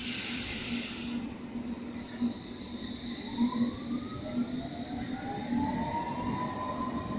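London Underground S Stock train pulling away: a short burst of air hiss at the start, then the traction motors' whine rising steadily in pitch as the train accelerates, over a steady hum.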